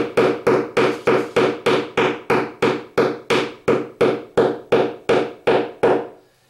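Small hammer tapping a wall anchor flush into a wall: light, evenly spaced taps about three a second, stopping near the end.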